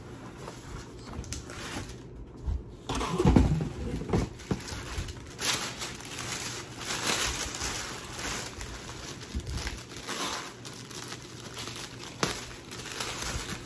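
Packaging being handled: paper and box material crinkling and rustling in irregular spells as a pair of boots is unpacked, with a thump about three seconds in and a few light knocks.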